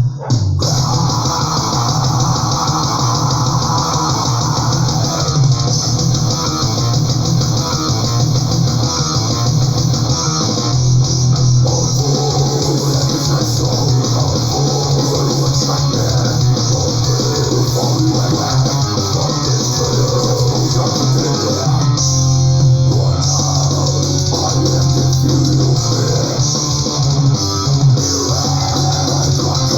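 Death-thrash metal recording: electric guitars, bass guitar and drum kit playing continuously.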